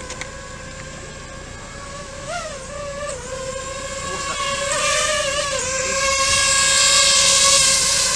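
Boat engine running with a steady droning whine that wavers slightly in pitch now and then. A rushing hiss builds up over the second half and then eases off near the end.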